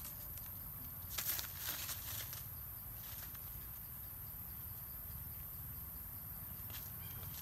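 Quiet forest-floor ambience: a steady high insect buzz with a low rumble under it, and brief rustling and crunching of dry leaf litter underfoot about a second in and again near two seconds.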